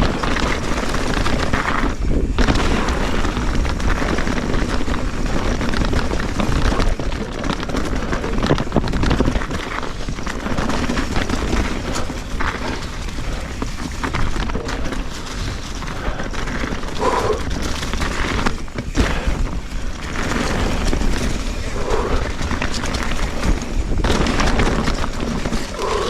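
Wind buffeting an action camera's microphone with a steady low rumble during a fast mountain-bike descent. Under it are the rolling tyres and scattered knocks and rattles of the bike over rough trail.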